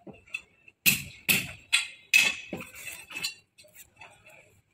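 Handling noise from a plastic car bumper-guard strip: a quick run of sharp clacks and clicks about a second in as the strip is picked up and handled, then a few fainter clicks.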